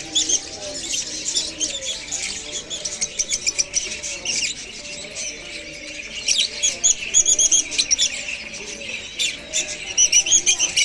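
Several parrots chirping and chattering with quick high calls and short squawks, busiest in the second half.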